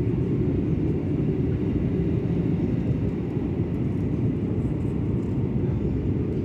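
Steady low rumble of an airliner's engines and airflow, heard inside the passenger cabin.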